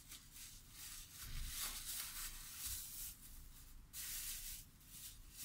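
Thin clear plastic bag rustling and crinkling in the hands in several short bursts, as it is twisted around a ball of soft vegetarian burger mix to press it tight and then opened out.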